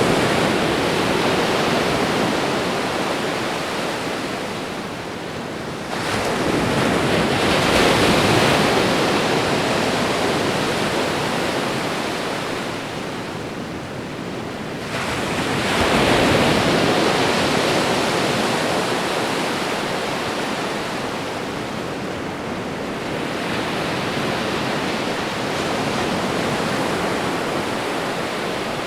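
Ocean waves breaking on a shore and washing back, a fresh wave surging in about every eight seconds.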